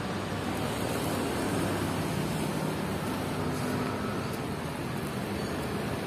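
Steady vehicle engine hum, a low drone under an even rushing noise, with no sudden changes.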